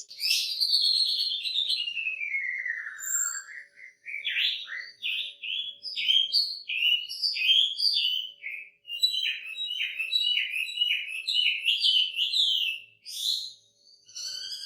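Chinese hwamei singing: a long whistle sliding steadily down in pitch over about three seconds, then a run of quick, down-slurred notes that speed up in the second half.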